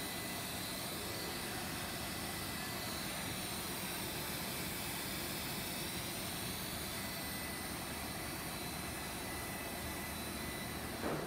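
Cast stretch-film extrusion line running: a steady mechanical hum and hiss with a constant high whine, and a brief knock near the end.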